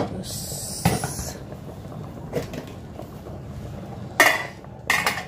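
A wooden spoon knocks against a stainless steel pot of simmering curry, twice in the first second. Near the end a glass pot lid clanks down onto the steel rim twice, each clank ringing briefly.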